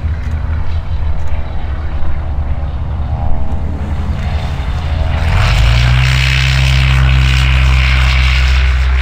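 Light propeller aircraft engine. Its note rises about five seconds in and then holds as a steady, louder propeller drone.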